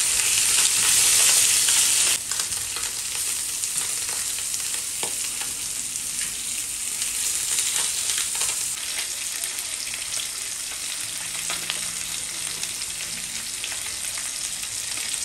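Sea bream fillet and lemon slices frying in olive oil in a stainless steel pan: a steady sizzle with fine crackling. The sizzle drops suddenly to a quieter level about two seconds in.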